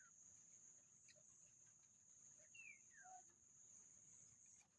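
Faint outdoor ambience: a steady high-pitched insect drone, with a bird's falling whistled call twice, about two and a half seconds apart.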